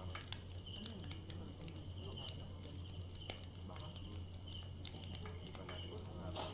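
Night chorus of crickets chirping steadily, a continuous high trill with pulsing chirps, over a low steady hum.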